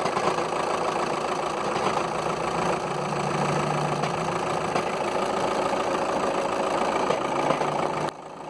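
2.0-litre TDI four-cylinder diesel engine of a VW Touran idling with a rattling noise, the tell-tale sign of a worn dual mass flywheel in a DSG car, confirmed by a garage check after the air conditioning was ruled out. The sound drops suddenly in level near the end.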